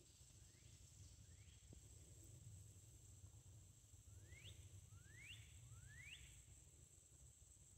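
Faint swamp ambience: a steady, high-pitched insect drone, with a bird repeating a short rising whistle. The whistle comes faintly twice early on and then three times clearly in quick succession about halfway through.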